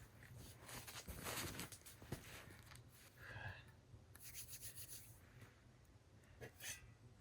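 Faint rustling and scraping with scattered light clicks, a short squeak about three seconds in and a brief hiss past the middle.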